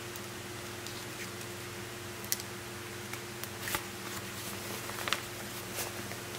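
A backpack being handled: a few short light clicks and rustles, the sharpest about two seconds in and near the end, over a steady low hum.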